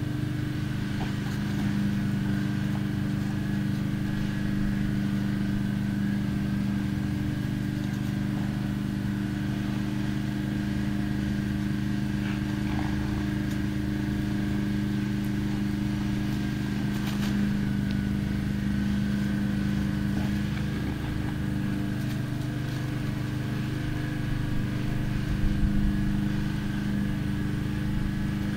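An engine running steadily at a constant speed, an even low hum with no revving.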